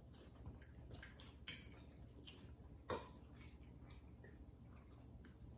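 Quiet room tone with a few scattered light clicks of forks against plates during a meal. The sharpest click comes about three seconds in.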